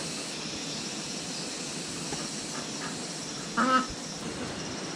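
Rural outdoor ambience: a steady high hiss, with one short animal call about three and a half seconds in.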